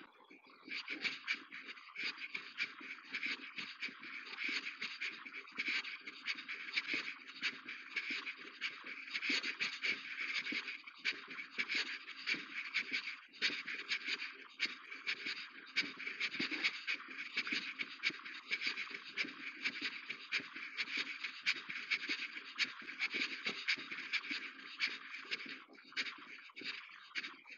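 Footsteps crunching on gravel: a continuous, irregular crackling scrape.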